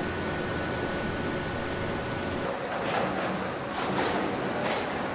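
Car-factory assembly-line machinery: a steady mechanical hum and hiss. After about two and a half seconds, several short sharp clanks or air hisses come about a second apart.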